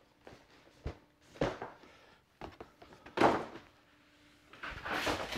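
A stiff cardboard presentation box being handled on a workbench: a few dull knocks and thumps, the loudest about three seconds in, then a rustling scrape of cardboard near the end.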